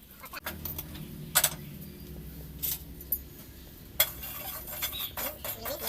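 Metal kitchen utensils clinking against pots and dishes: a few separate clinks, then a quicker run of clatter in the last two seconds, over a low steady hum.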